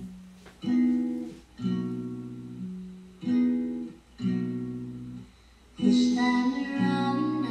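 Background music: an acoustic guitar strumming chords, about one chord a second, the playing growing fuller near the end.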